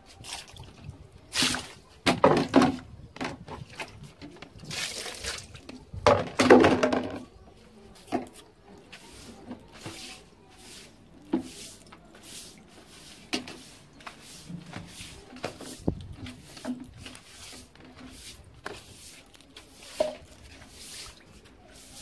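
Plastic-bristled broom sweeping a wet tiled floor, a run of uneven swishing strokes, the loudest a few seconds in.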